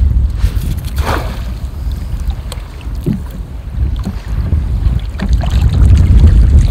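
Wind buffeting the microphone on a kayak out on choppy water: a steady, loud low rumble, with a couple of light knocks about one and three seconds in.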